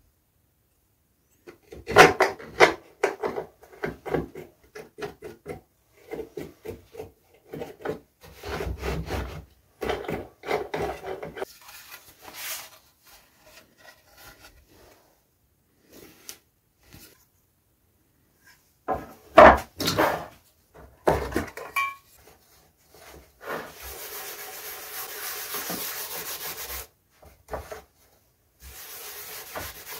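Wooden workpieces and tools being handled: scattered knocks, clatter and scrapes. Near the end, a steady rubbing as paste wax is wiped with a rag across the wooden router table top, pausing briefly between two spells.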